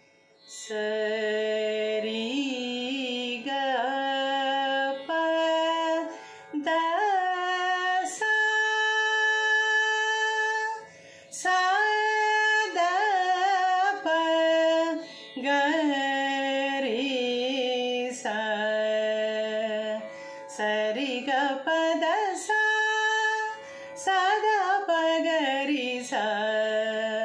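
A woman singing Carnatic phrases in Mohana raga, a five-note (audava) raga, with held notes and gliding ornaments in short phrases, over a steady tanpura drone.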